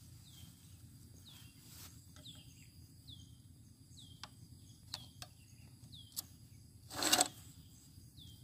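Faint outdoor background in which a short, high, falling chirp from a bird or insect repeats about once a second. A few sharp clicks come from hands handling a STIHL 070 chainsaw's chain and bar while the saw is off. A brief, louder burst of noise comes about seven seconds in.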